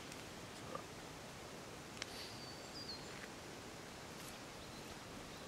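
Faint steady outdoor background hiss, with a single thin high bird call lasting under a second, stepping down slightly in pitch about two seconds in, and a few soft clicks.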